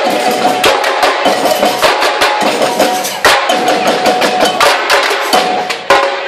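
Marching band drums beating a fast rhythm, with a few held notes from other band instruments.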